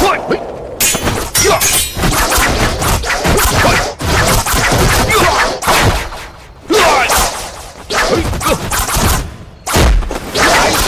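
Sound effects for a film sword fight: a dense run of thuds, whacks and crashes as blows strike and rock breaks apart. A quieter stretch comes around six seconds in and again around nine, and a heavy thud lands about ten seconds in.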